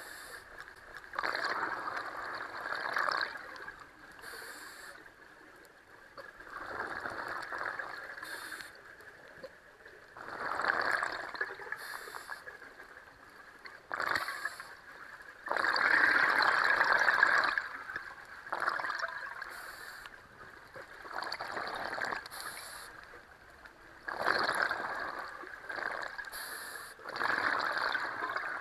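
Scuba diver breathing through a regulator underwater: short hisses of inhaled air and longer gurgling bursts of exhaled bubbles, repeating every few seconds.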